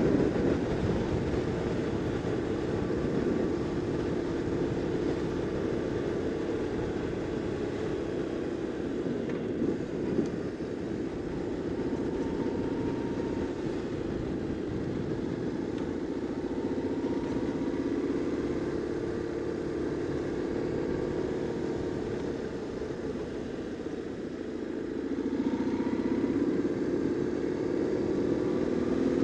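BMW R850R's boxer twin engine running at low city speed, easing off for a while and then rising in pitch as it accelerates near the end.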